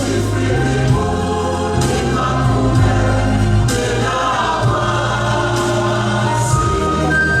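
Choir singing a gospel song, held chords changing every second or two over steady bass notes.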